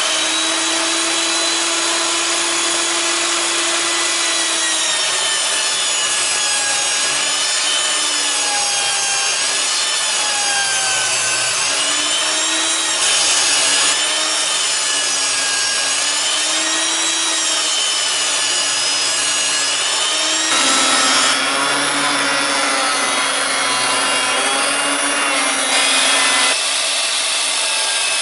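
Ryobi table saw running and ripping boards, its motor whine sagging and recovering again and again as the blade takes the load. The tone shifts abruptly a few times.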